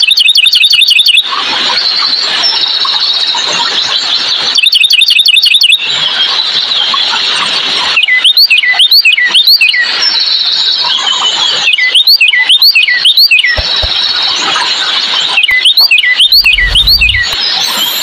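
Northern cardinal song: phrases of loud, sharply slurred whistles repeated in bunches of three to six notes, with a very fast trill right at the start and again about five seconds in. A steady high-pitched background chorus runs underneath.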